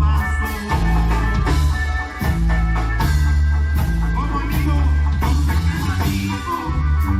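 Live Mexican regional band music, instrumental: a steady drum beat under a held bass line and higher melody lines.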